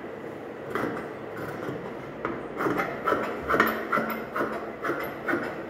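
Large tailor's scissors cutting through pant fabric laid on a wooden table: a run of irregular snips that come closer together and louder about halfway through.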